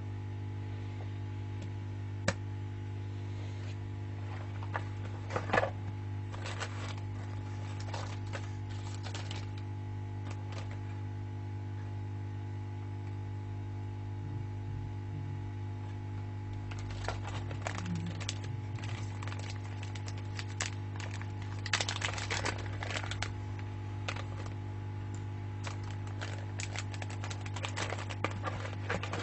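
Small metal repair tools clicking and tapping lightly on a phone's parts, in scattered runs with the busiest stretch past the middle, over a constant low electrical hum.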